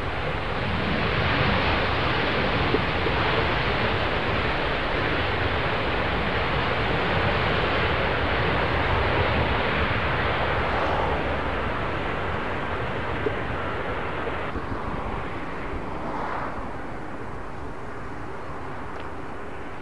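Jet engines of a Boeing 737 airliner rolling along the runway, a steady roar that is loudest in the first half and fades as the aircraft moves away.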